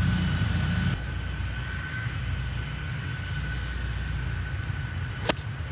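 A 6-iron striking a golf ball on a tee shot: one sharp click about five seconds in, over a steady low background rumble.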